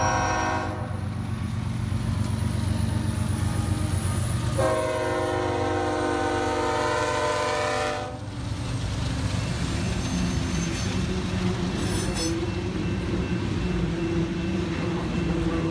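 BNSF diesel freight locomotive's horn sounding: a brief blast at the start and a longer blast from about 4.5 seconds that cuts off at about 8 seconds, over the steady rumble of the locomotives. After that the locomotives and freight cars rumble past close by.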